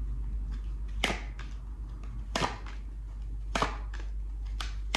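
Tarot cards being drawn from the deck and put down on a table: four sharp card snaps, about one a second, with a few fainter card clicks between.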